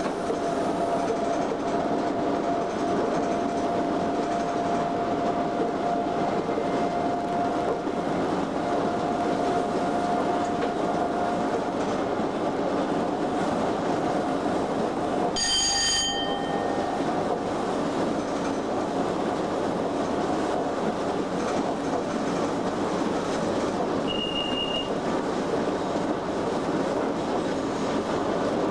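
Cab noise of a Class 87 25 kV AC electric locomotive running at speed: a steady rumble of wheels on rail, with a steady whine that fades out in the first half. About halfway through comes a brief sharp ringing sound, and near the end a short high beep.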